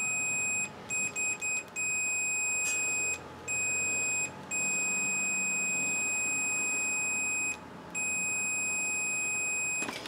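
Digital multimeter's continuity beeper sounding a steady high tone while its probes sit on the leads of a dishwasher's main power switch: a few short beeps about a second in, then long beeps broken by brief gaps. Each beep marks continuity through the switch contacts, showing the switch works.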